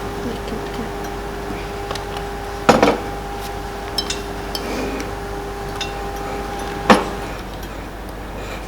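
A metal spoon knocking and clinking against a glass jar while dessert is spooned into it, with two louder knocks, about three seconds in and about seven seconds in, and small clinks between. A steady hum runs underneath and stops shortly after the second loud knock.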